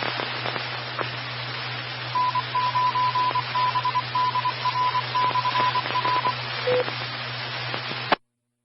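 Open radio channel hissing with a steady hum, over which a single high tone beeps out a string of short and long Morse-code beeps, like a repeater's identifier, followed by one short lower beep; the signal cuts off abruptly near the end as the transmission drops.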